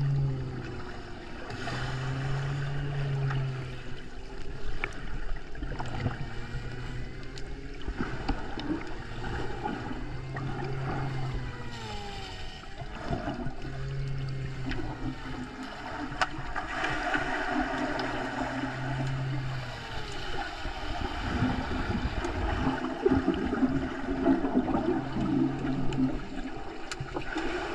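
Muffled underwater sound picked up by a submerged camera: water moving and gurgling, with low tones that swell and fade every few seconds.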